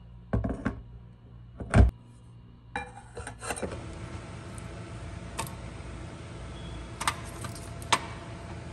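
Kitchen handling sounds: a few sharp clicks and knocks of utensils and dishes, the loudest about two seconds in. Then a steady hiss under occasional light clicks of a knife against a plate.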